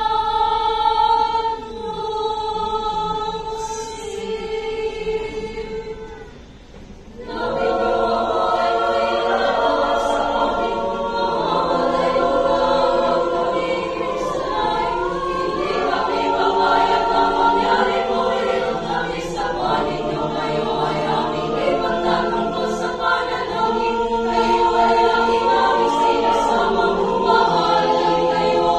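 Choir of young women singing unaccompanied in parts: a chord held for about six seconds, a short break, then the full choir in moving harmony.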